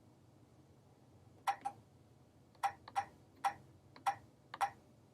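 Short, sharp taps of key presses on the key machine's console keyboard as a password is typed in, about seven clicks, some in quick pairs, starting a second and a half in.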